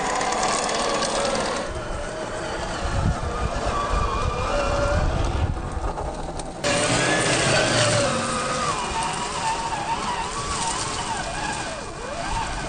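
A scale RC crawler on a Vanquish VS4-10 chassis driving over loose gravel: its electric motor and geared drivetrain whine, rising and falling in pitch with the throttle, over the crunch of tyres on stones. The sound changes abruptly twice, about two seconds in and again just past halfway.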